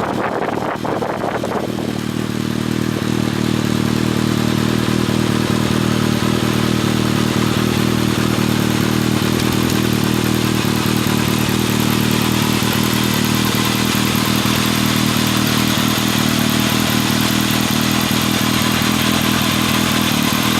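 Kawasaki ZRX1200 DAEG inline-four exhausting through an MH Asano titanium-carbon slip-on muffler, running stationary at a steady engine speed. The note settles about two seconds in. The engine is still in break-in and is held at or below 4000 rpm.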